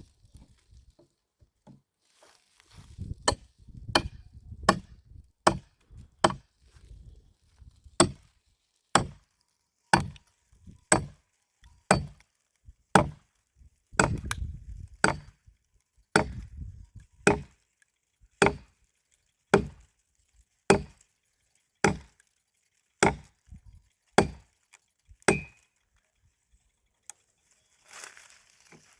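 Firewood being chopped: a long run of sharp, evenly paced blows, about one a second.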